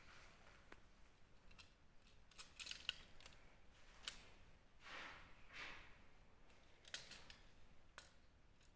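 Faint scattered clicks and a few short scraping rustles from small hard objects being handled, with no steady machine sound.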